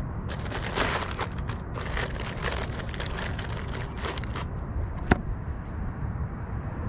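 Plastic bag crinkling and rustling as a bag of anchovy bait is dug out of a small cooler and handled, over a steady low rumble. The crinkling dies down after about four and a half seconds, and a single sharp click follows about five seconds in.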